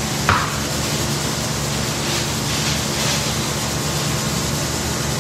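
Steady rushing machinery noise of a commercial kitchen with a low hum, and one short knock about a third of a second in.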